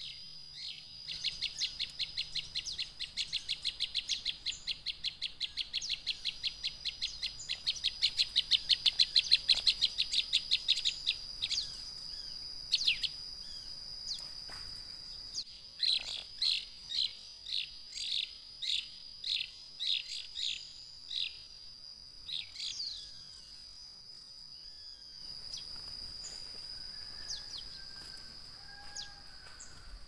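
A prinia (prenjak) calling: a fast, even run of sharp high chirps, about five a second, for roughly ten seconds, then after a pause a slower series of separate chirps. A steady high whine runs underneath.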